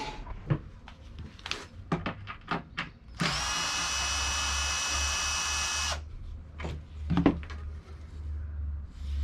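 Cordless drill-driver running steadily for about three seconds to back a screw out of a plywood table-saw insert plate, with light handling clicks before and after and a sharper knock near the end as the plate comes out.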